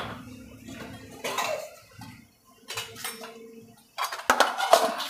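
Metal spoon clinking and knocking against stainless steel bowls and containers while spices and salt are handled. There are a few separate clinks with a brief metallic ring, and a quicker run of clatter near the end.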